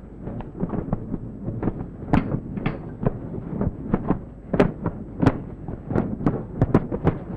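Boxing-glove punches landing in a quick, irregular run of sharp smacks and thuds, a few louder ones standing out.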